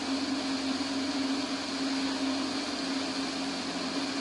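Single-engine light aircraft in cruise: the engine and propeller make a steady drone, a constant hum over an even rushing hiss.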